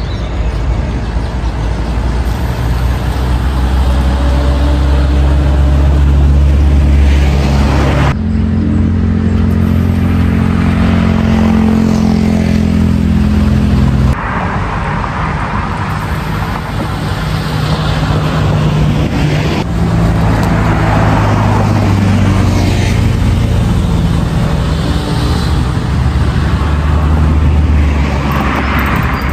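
Motor vehicle engines running steadily with road traffic passing by, loud. The sound changes abruptly twice, and in the second half vehicles swell past one after another.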